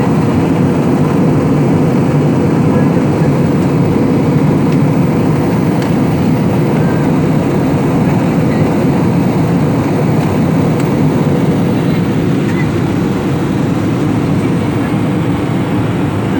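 Steady, unbroken rumble and rush inside an airliner cabin: engine and airflow noise.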